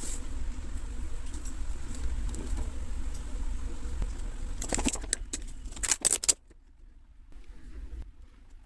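Retail packaging of a boxed PCIe Wi-Fi adapter being handled and opened: a low rumble, then a cluster of sharp clicks and crinkles about five to six seconds in.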